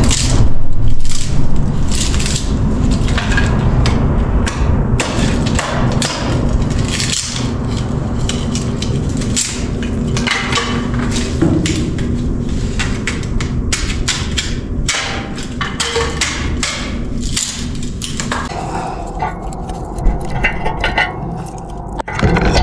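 A heavy multipurpose knife chopping and splitting firewood, with repeated sharp irregular strikes over a steady low rumble.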